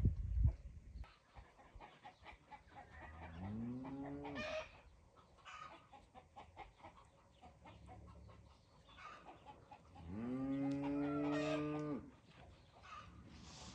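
Farmyard animals: hens clucking in short scattered calls, and a cow lowing twice, long low calls that slide up and then hold, the second one about ten seconds in and louder.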